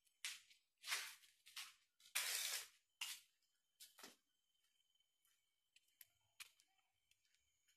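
A run of short rustling, scraping noises, the loudest about two seconds in, thinning out to a few faint ticks over a faint steady high whine.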